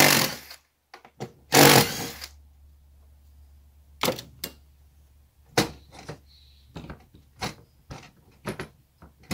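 Tool work on the screws and parts of a truck camper lift mechanism: two short, loud, noisy bursts in the first two seconds, then about ten sharp, separate metallic clicks and clinks as the parts are handled.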